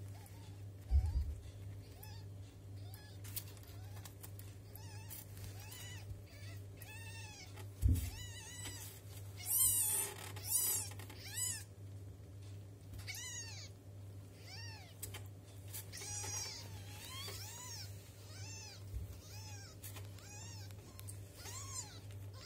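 Two-week-old kittens mewing over and over, short high thin calls that each rise and fall, one or two a second, while they nurse. A low steady hum runs underneath, with a couple of soft thumps and a brief rustle.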